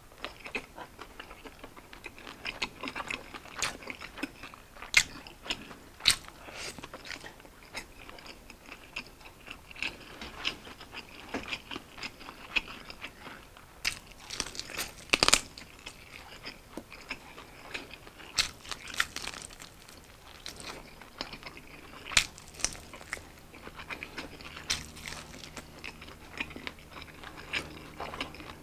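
Close-miked eating of fried chicken wings: biting into the crisp, sauced skin and chewing with the mouth close to the microphone, in many sharp, irregular bites, the loudest about halfway through. A faint low hum comes in during the last few seconds.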